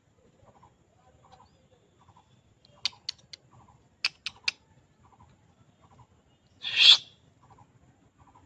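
Animal sounds in a tree canopy: a faint chirping call repeating about twice a second, two quick runs of three sharp clicks about a third of the way in, and one short harsh, hissy screech near the end, the loudest sound.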